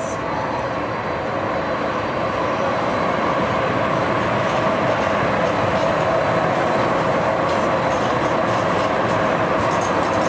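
TRAX light-rail train running slowly past: a steady rumble of the cars on the rails with two held tones above it.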